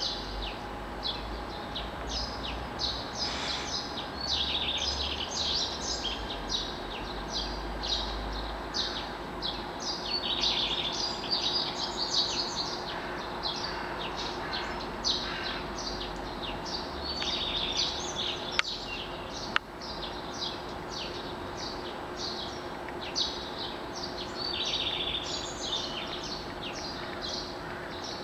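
Dawn chorus: many small birds singing at once in dense, overlapping chirps and trills, over a faint steady background hum. Two sharp clicks come about two-thirds of the way through.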